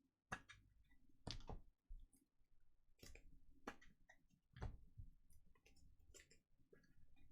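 Near silence, broken by faint, scattered clicks and taps of trading cards being handled.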